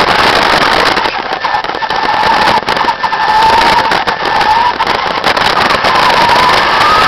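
Jet engine of an RC car running with a loud rushing roar and a whining tone that wavers, then rises in pitch near the end.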